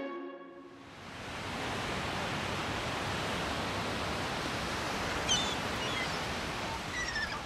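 Steady wash of ocean surf on a beach, fading in about a second in and then holding even, with a few faint high chirps about five seconds in and near the end.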